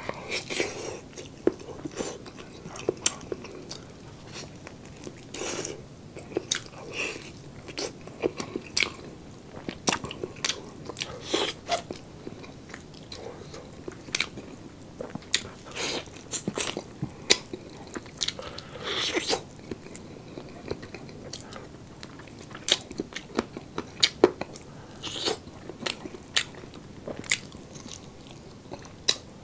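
A man biting and chewing roast chicken: irregular wet mouth smacks and sharp clicks as he eats, a few a second at the busiest moments.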